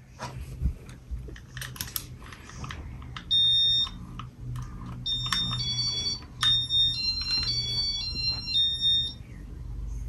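Casablanca Halogen Star ceiling fan running with a steady low motor hum. From about three seconds in to about nine seconds, its electronic control gives a series of short beeps at a few different pitches, with a few clicks in between, as its settings are changed.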